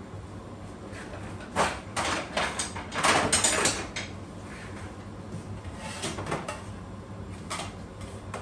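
Stainless steel trays and pans being handled: a series of metal knocks and scrapes, loudest in a cluster about three seconds in, with a few lighter knocks later, over a low steady hum.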